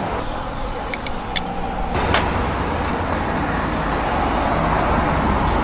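Steady road traffic noise, with a low rumble that grows about two seconds in. A couple of light clicks are heard early on top of it.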